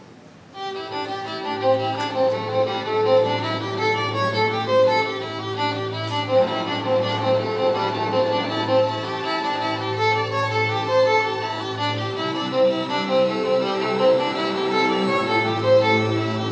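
Youth string orchestra starts playing about half a second in: a violin lead over the string section, with a held low bass note that drops out briefly a few times. At the opening the two standing student violinists improvise the lead.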